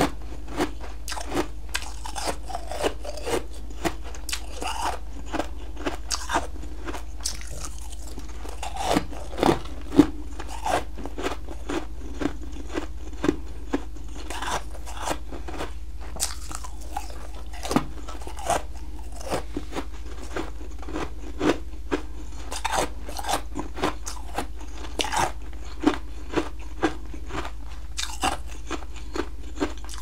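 A person biting and chewing crunchy chunks of refrozen blended humidifier frost from a freezer: a dense run of sharp icy crunches, with the loudest bites about nine to ten seconds in.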